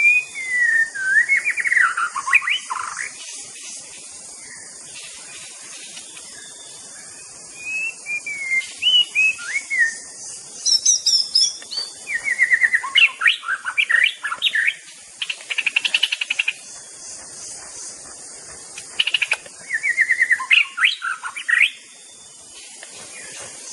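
White-rumped shama (murai batu) singing in several bursts of varied whistled and quickly trilled phrases, with pauses between them. A faint steady high hiss lies underneath.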